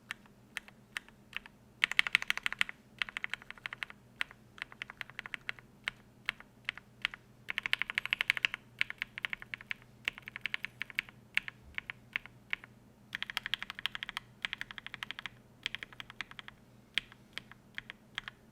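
Typing on a mechanical keyboard with lubed linear switches (Think6.5 with a polycarbonate plate), in fast runs of keystrokes with short pauses between them.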